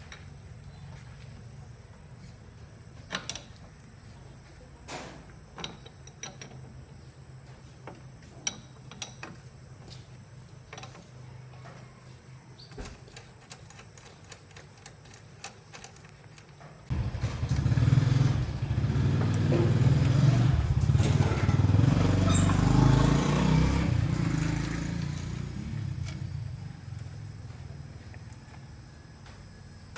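A low steady hum with scattered light clicks. About two-thirds of the way through, a motor vehicle engine starts up loudly all at once, runs for several seconds and then fades away.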